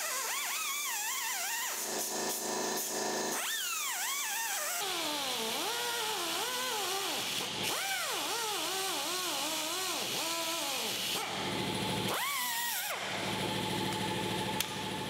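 Pneumatic cutoff wheel cutting through the old rusted steel floor pan of a 1959 VW Beetle. Its whine drops and rises in pitch over and over as the disc is pressed into the metal and eased off, with a hiss of air behind it.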